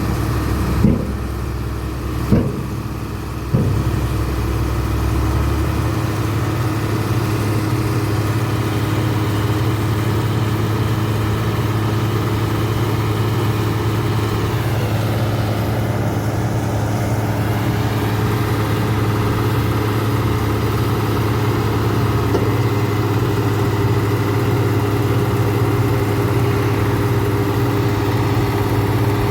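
Heavy road-construction machine engine running steadily, with a constant hum. A few short knocks come in the first few seconds.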